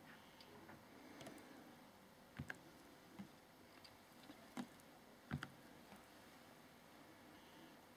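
Fingertip taps on a tablet's touchscreen: a handful of light, sharp clicks, some in quick pairs, over near-silent room tone.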